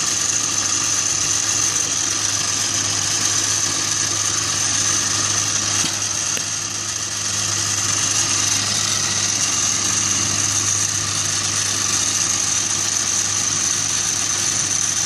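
A steady mechanical drone, like a motor or engine running, with a constant high-pitched whine over it.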